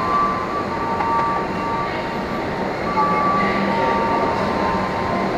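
An electric commuter train running through the station: a steady rumble with thin, high squealing tones that come and go.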